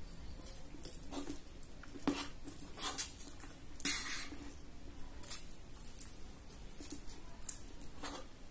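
Close-up eating sounds: a person slurping fried instant noodles off a fork and chewing, in a string of short wet slurps and smacks, the longest about four seconds in. The fork scrapes and clinks against the serving tray.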